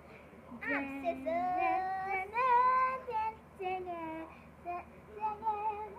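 A young girl singing a tune on her own, with long held notes that slide up in pitch, starting about half a second in, then shorter notes toward the end.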